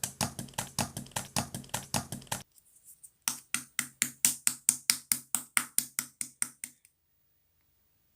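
Slime being worked in the hands, making rapid crisp clicks and pops about five or six a second, in two runs with a short pause between them. The second run is louder, and the sound cuts off abruptly about seven seconds in.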